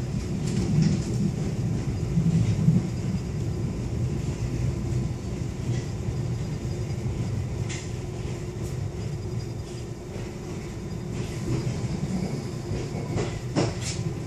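London Underground District line train heard from inside the carriage as it runs along the track: a steady low rumble, with a few sharp clicks near the end.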